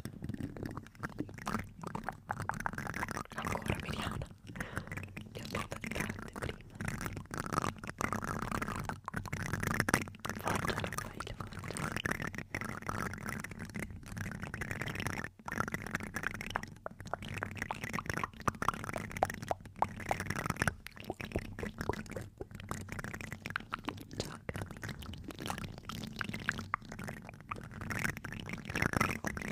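Plastic spoons scraped and tapped against a microphone's mesh grille, close up: a dense, continuous run of rapid scratching and clicking.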